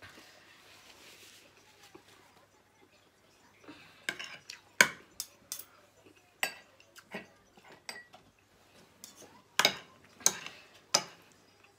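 Metal spoon and fork clinking and scraping against a ceramic dinner plate while eating: a run of sharp clinks starting about four seconds in, the loudest near five and near ten seconds.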